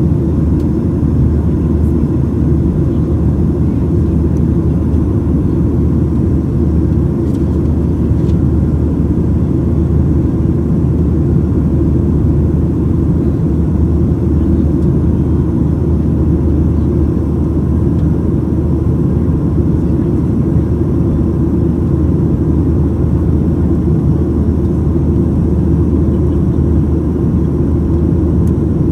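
Steady, deep cabin noise of a Boeing 737-900ER in the climb, heard from a window seat over the right wing: its two CFM56-7B27E turbofan engines running and the rush of air over the fuselage, unchanging throughout.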